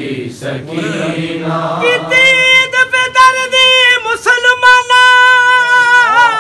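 Men chanting a Punjabi devotional lament (kalam), unaccompanied. About two seconds in, a single high male voice takes the lead with long, held notes.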